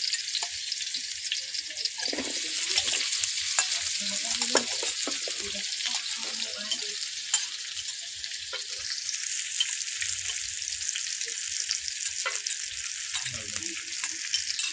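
Food sizzling and crackling in hot oil in a pan, steady throughout, with a few knocks and scrapes of a utensil stirring it.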